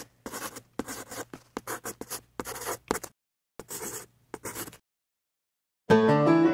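Pen scratching on paper in a quick series of short strokes, a handwriting sound effect, stopping about five seconds in. Music starts near the end.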